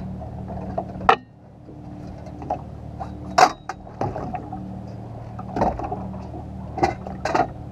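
A boat's motor runs steadily with a low hum. Several sharp knocks and clatters of gear being handled on the boat cut across it, the loudest about three and a half seconds in as the landing net is taken up.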